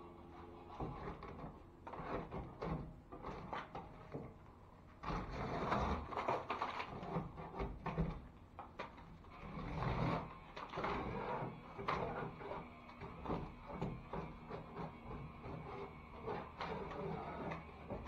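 A metal hand scraper scraping and tearing loose paper joint tape off a drywall ceiling seam in irregular strokes, with paper ripping and bits of joint compound breaking away. The tape is peeling off a weathered, failed seam.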